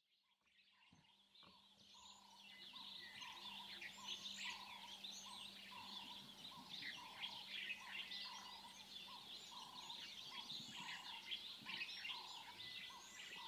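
Faint dawn chorus of wild birds: many overlapping chirps and whistles, with one lower note repeated at a steady pace, roughly three every two seconds. It fades in over the first couple of seconds.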